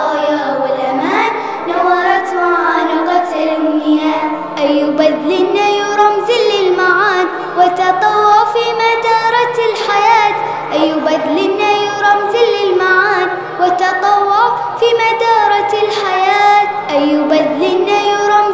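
Young girls singing an Arabic song to music, the melody running on without a break.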